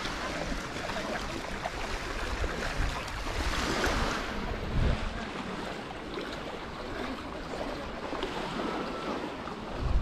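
Baltic Sea surf washing onto a sandy beach, a steady rush of waves that swells about four seconds in, with some wind on the microphone.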